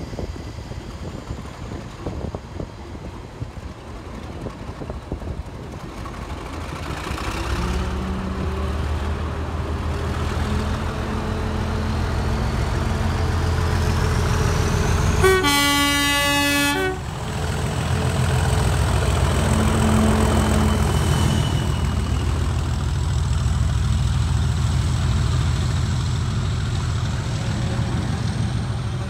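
Diesel locomotive's engine running under power as it approaches, growing steadily louder, with one horn blast of about a second and a half halfway through.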